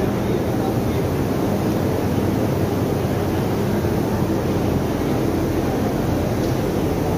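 Steady low rumble of a large exhibition hall's background noise, unchanging throughout.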